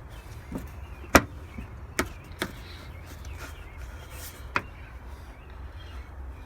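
Four sharp knocks of tools and parts being handled during work on a car's radiator and fan shroud, the loudest about a second in, over a steady low rumble.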